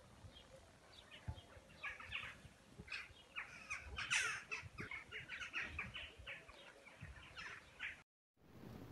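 Many small birds chirping and calling, with dense overlapping short chirps and quick downward-sweeping notes. The chorus cuts off suddenly about eight seconds in.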